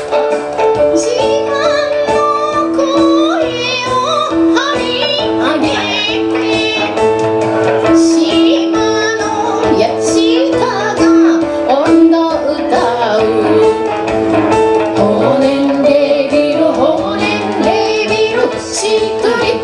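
Live song: a woman singing over a Roland JUNO synthesizer keyboard holding sustained chords.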